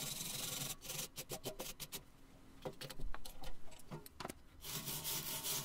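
A scatter of light metal clicks and taps from tools being handled. In the last second a wire brush starts scrubbing the freshly brazed hinge joint on the cast iron window frame.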